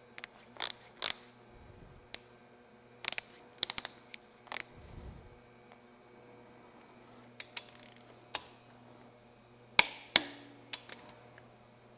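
A torque wrench being set and its socket fitted onto the ARP main bearing cap studs of an MGB B-series engine block: scattered light metal clicks and taps, with two sharp metal knocks about ten seconds in, the loudest. A faint steady hum runs underneath.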